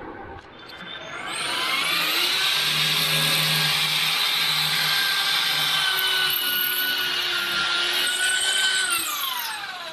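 Electric drill boring a hole in the wall: the motor winds up about a second in, runs steadily for about seven seconds, then winds down near the end.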